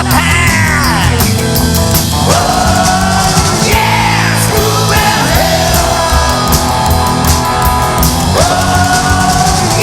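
Rock band playing at full volume: drum kit, bass and guitars, with a lead part that slides down in pitch several times.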